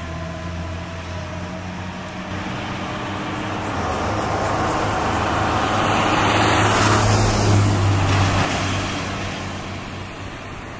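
Road traffic: a fire engine's low steady engine hum as it pulls away, while a car passes close by, its tyre and engine noise swelling to a peak about seven seconds in and then fading.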